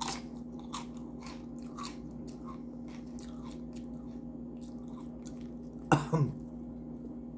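Close-up crunching and chewing of Doritos tortilla chips loaded with nacho toppings, an irregular run of sharp crackly bites. About six seconds in the eater makes a short vocal sound. A faint steady hum lies underneath.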